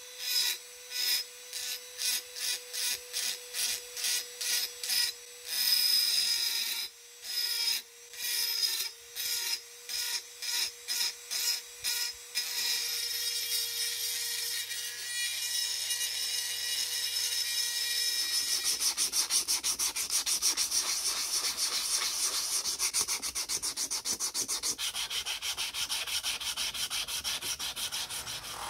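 Rotary tool with an abrasive sanding cap grinding a cast metal hole-punch lever, the motor whining steadily. For the first twelve seconds or so it works in short repeated passes, a little more than one a second, then it switches to continuous grinding.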